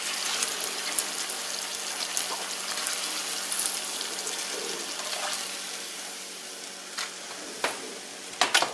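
Hot oil in a cast iron skillet sizzling and crackling as the last fried green tomato slices are lifted out with a spatula. The sizzle grows quieter about two-thirds of the way through as the pan empties, and there are a few knocks of the spatula near the end.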